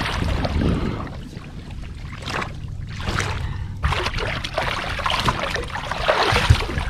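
Water splashing and trickling around a kayak, with scattered knocks and clicks of handling on board.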